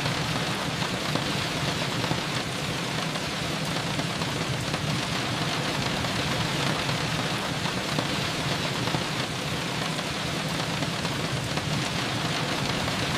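Steady rain falling, a continuous hiss with fine pattering drops.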